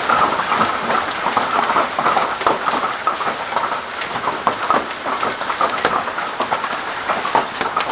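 Hailstones and heavy rain pelting down together: a dense, unbroken clatter of many hard impacts.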